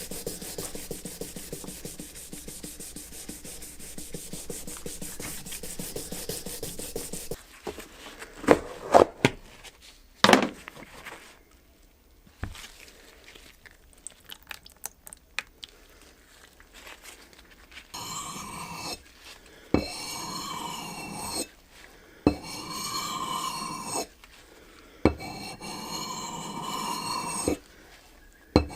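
Quick, even abrasive rubbing strokes, as of hand sanding or filing, for the first seven seconds or so. Then come a few sharp knocks and scattered clicks, and later several short runs of a whirring sound, each a second or two long, with clicks between them.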